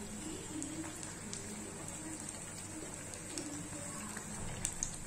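Semolina-and-potato snack pieces deep-frying in hot oil in a kadhai: steady sizzling crackle of bubbling oil. A few light clicks of a slotted skimmer against the pan, the sharpest near the end.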